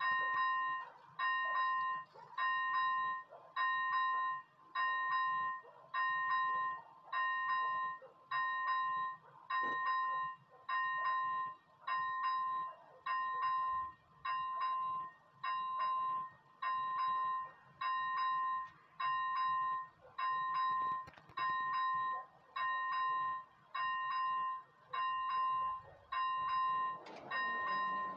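Automatic level-crossing warning bell, an electronic ringing tone repeating evenly a little faster than once a second, sounding while the red lights flash and the barriers are down. A low hum joins near the end.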